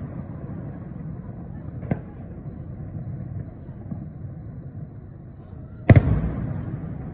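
Aerial firework shells bursting: a single bang about two seconds in, then a much louder bang near the end that rolls off in a long echoing rumble.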